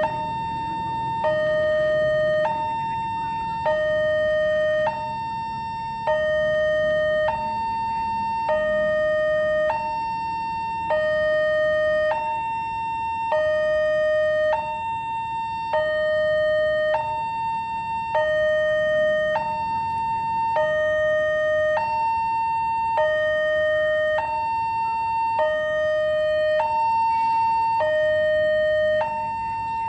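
Railway level-crossing barrier alarm sounding a two-tone electronic siren: a higher tone and a lower tone alternate, each held a little over a second, repeating steadily about every two and a half seconds. It is the warning that a train is coming and the crossing barrier is closing.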